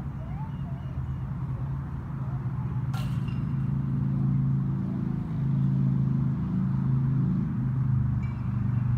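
A low, steady engine-like drone that grows louder about four seconds in, with a single sharp click about three seconds in.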